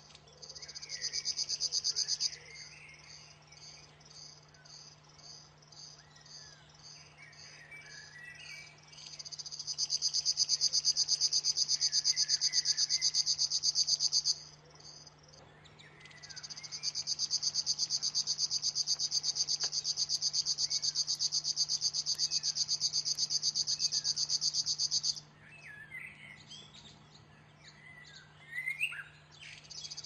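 River warbler singing: a loud, rhythmic, insect-like buzzing reel in long bouts, one about five seconds and one about nine seconds, with short breaks between. In the breaks a fainter, slower pulsing and short chirps of other birds are heard.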